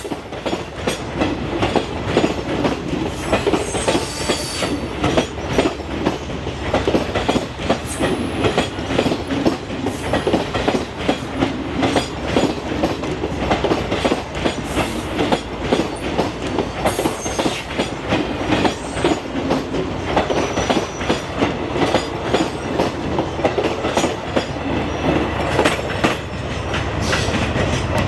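Express train coaches rolling past close by, their wheels clattering over the rail joints in a steady, dense clickety-clack. A few brief high-pitched squeals of wheel on rail come through.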